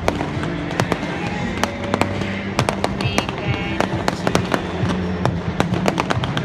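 Fireworks display: aerial shells bursting in rapid, irregular bangs and crackles, many overlapping.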